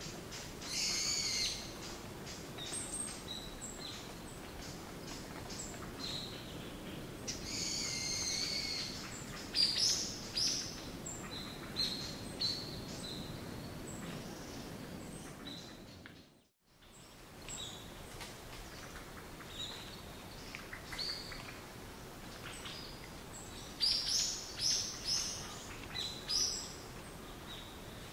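Birds chirping and calling, with clusters of short high calls over a steady background hiss. The sound drops briefly to silence a little past halfway, then the chirping resumes.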